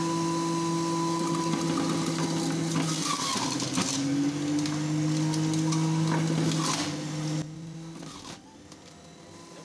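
Electric juicer running with a steady motor hum and grinding as lemon pieces are pushed down its feed chute. The pitch dips briefly about three to four seconds in as it takes the load, then recovers. The motor stops abruptly about seven seconds in.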